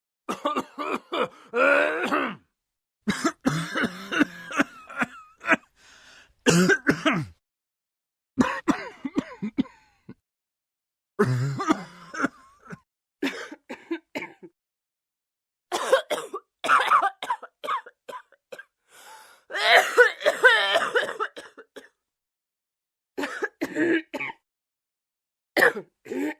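Human coughing and throat clearing in about ten separate bouts of one to three seconds each, with moments of complete silence between them.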